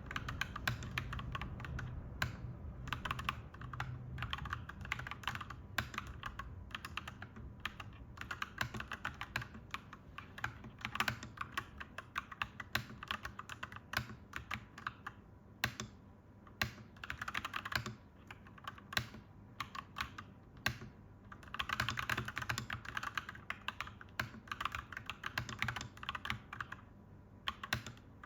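Clacky mechanical keyboard typing: key presses in quick runs with short pauses now and then and a denser flurry a little past the middle. A low steady rumble sits underneath, strongest in the first few seconds.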